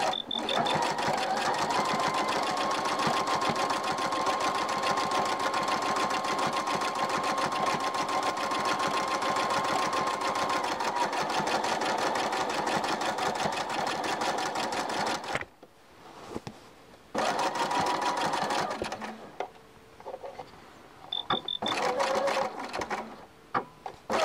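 Bernina electronic sewing machine stitching: a fast needle rattle over a steady motor whine for about fifteen seconds, then it stops and runs again in a few short spurts. A few short high beeps sound near the start and near the end.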